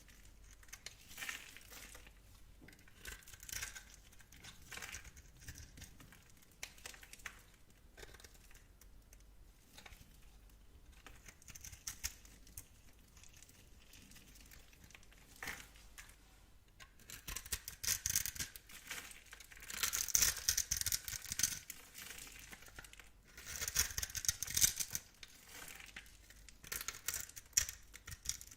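A knife blade cutting through dry bar soap, with crisp crackling and scraping strokes. The crackle comes in scattered short runs, then in two longer, louder flurries past the middle.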